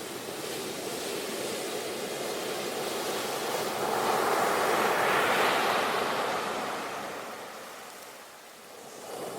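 Sea waves breaking on a shore: a steady hiss of surf that swells as a wave breaks about halfway through, then fades as it washes back.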